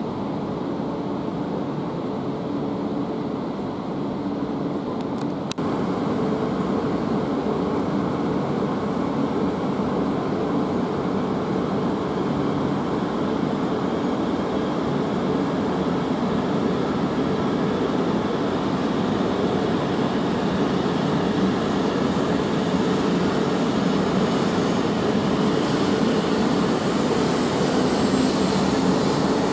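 E2 series Shinkansen running in alongside the platform, a steady rumble of wheels on rail with a humming drone from the train. It grows louder about five seconds in as the train comes close, and a higher hiss joins near the end as the cars roll past.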